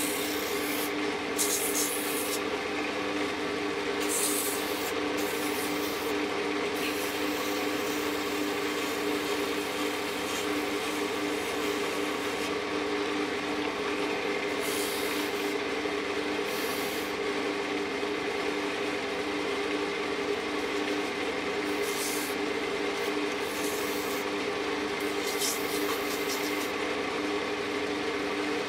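Wood lathe running with a steady motor hum while P240 sandpaper is held against the spinning wooden spindle. The sanding gives a rasping hiss that swells and fades as the paper is pressed on and lifted off.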